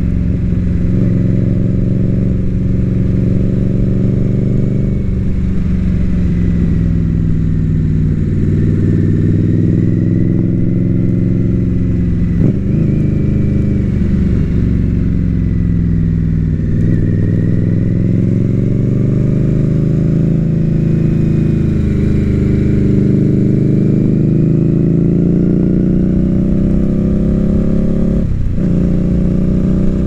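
Indian Scout Bobber's liquid-cooled V-twin running through a Bassani aftermarket exhaust while riding at road speed, its pitch rising and falling with the throttle. There are brief dips in the engine note about twelve seconds in, again a few seconds later and near the end, over a rough low wind rumble on the microphone.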